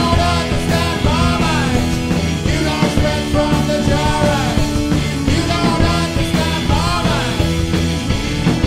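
Live rock band playing a song: electric guitars, keyboard and drums, with a sung vocal line that rises and falls over it.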